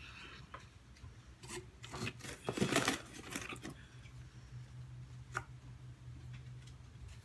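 Small fairy house figurines being handled, rubbed and set down on a cloth-covered tabletop: a flurry of scraping and clicks around the middle, then a single click. A low steady hum comes in about halfway.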